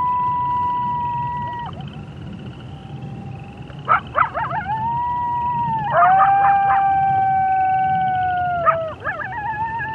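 Gray wolves howling in chorus. One long, steady howl fades out a little under two seconds in; after a short lull, quick yips and sliding calls break in about four seconds in, then several wolves hold long overlapping howls at different pitches, with more short yips near the end.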